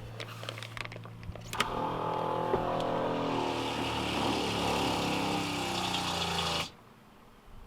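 Boat's newly installed freshwater pressure pump switched on: a few clicks, then the pump runs steadily for about five seconds, its pitch sinking slowly, and cuts off suddenly.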